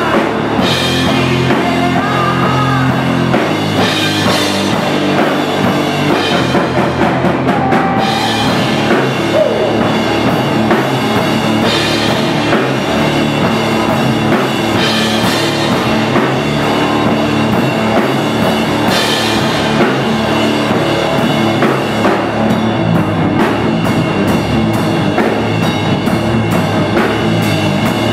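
Loud live rock from an electric guitar played through amplifiers and a drum kit, the drummer driving it on cymbals, snare and bass drum, with no vocals.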